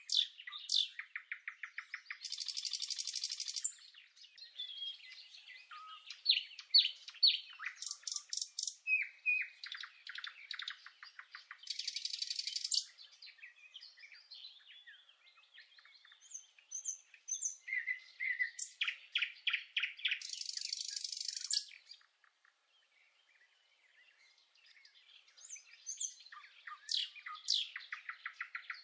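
Songbirds singing: quick chirps and short whistled notes, broken every several seconds by a dry, buzzy trill lasting about a second. The song drops away almost to nothing for a few seconds about two-thirds of the way through.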